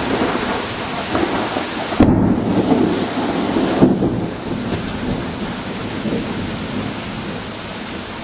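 Thunderstorm: steady rain with thunder. There is a sharp crack about two seconds in that rolls on as a rumble, then another crack near four seconds, and the thunder fades under the rain.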